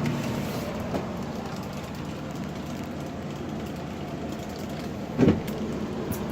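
Window air conditioner running with a steady hum and rush of air. A knock sounds about five seconds in.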